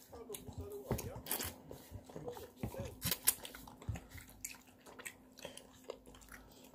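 A child eating noodles from a plastic bowl with a fork: chewing and slurping, mixed with short clicks and scrapes of the fork against the bowl, and a few brief voice sounds.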